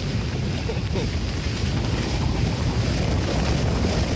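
Jeep Grand Cherokee driving along a dirt trail: a steady low rumble of engine and tyres, with wind buffeting the microphone.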